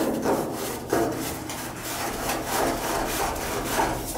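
Black iron pipe being screwed by hand into a threaded fitting, its doped threads rasping in a series of uneven scraping strokes as the pipe is turned.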